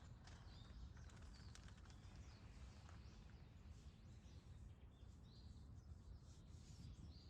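Faint outdoor ambience at dawn: scattered short bird chirps over a low, steady background rumble.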